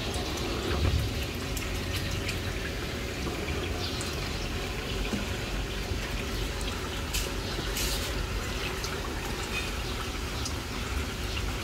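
Steady trickling and swirling of pool water, with a low hum beneath, while a hose-connected Steinbach pool-cleaning robot runs over the pool floor. A few faint clicks are heard in the mix.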